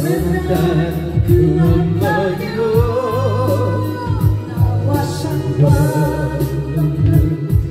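Man singing a Korean ballad into a karaoke microphone over a karaoke backing track with a steady beat and bass.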